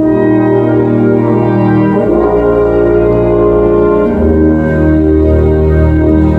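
Live band playing slow, sustained chords, with brass among the instruments. The chord shifts about two seconds in, and a deeper bass note comes in about four seconds in.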